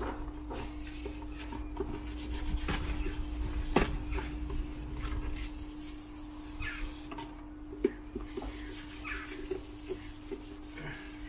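A Grimex cleaning wipe rubbed and scrubbed over a hard plastic glove box, with a few sharp knocks as the box is turned over in the hands, the loudest about four seconds in.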